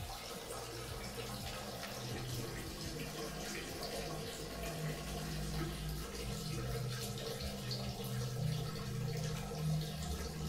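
Water trickling and dripping in a tiled toilet room, with a low steady hum underneath.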